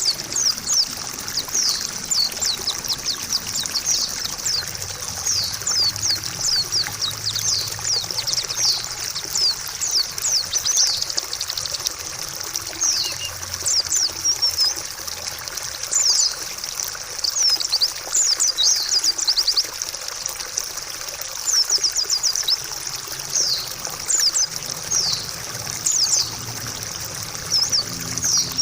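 Water trickling steadily, with a white-eye (pleci) singing quick, high twittering phrases in bursts over it.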